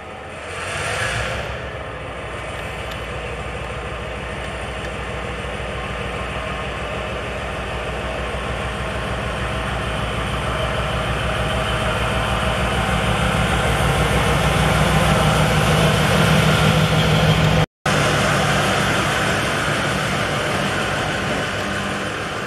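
Diesel-electric locomotive's engine running as it pulls away, its low drone growing steadily louder as it draws closer, with a short hiss about a second in. The sound cuts out for an instant near the loudest point.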